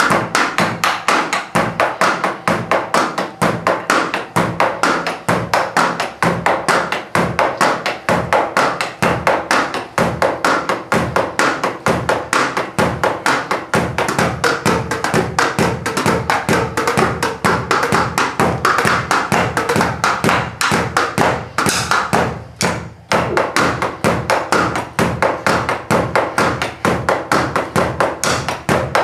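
Drumsticks striking the pads and cymbal pads of an electronic drum kit, heard as an unamplified, steady, fast rhythm of dull taps and thuds; the kit's drum sounds go only to headphones. The playing breaks off briefly a little over two-thirds of the way through.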